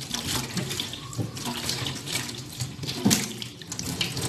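Kitchen tap running into a sink as dishes are washed by hand, with splashing and small knocks, and one sharper knock about three seconds in.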